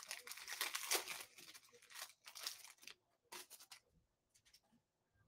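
Foil trading-card pack wrapper being torn open and crinkled, with dense rustling for about the first two seconds and a few shorter crinkles up to about four seconds in.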